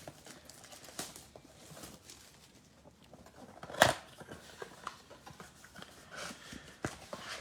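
Faint rustling and crackling from a trading-card blaster box and its wrapped packs being handled and opened, with one sharp click nearly four seconds in.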